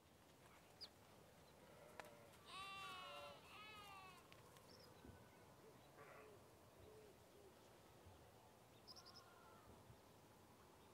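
Faint bleating of livestock: two wavering calls in quick succession about two and a half seconds in. Faint scrapes and clinks of a ladle in an aluminium cooking pot follow.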